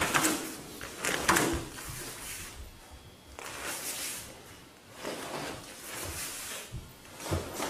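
Karate uniforms swishing and snapping, with soft steps on the foam mats, as several people move through a kata together. There are a few sharp snaps near the start and about a second in, a longer swish a few seconds later, and more scattered swishes near the end.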